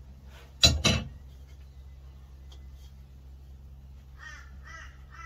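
Two sharp knocks a little under a second in, then a crow calling a run of short caws, about two a second, near the end, over a low steady hum.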